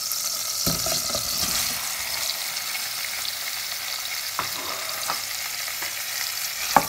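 Chopped ginger and garlic sizzling in hot cooking oil in a stainless steel saucepan, a steady high hiss. About a second in, halved tomatoes are tipped in from a plate with a soft tumble of thuds, followed by a few light knocks and a sharper click near the end.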